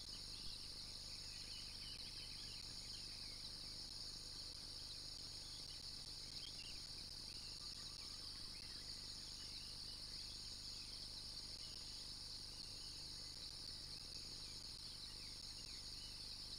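A steady, high-pitched insect chorus with scattered short bird chirps over it, busiest in the first half, and a faint low rumble underneath.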